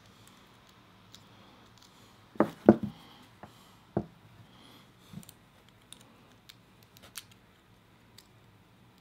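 Plastic model kit parts being handled and worked: a loud pair of sharp clicks about two and a half seconds in, another a second later, then a few lighter ticks.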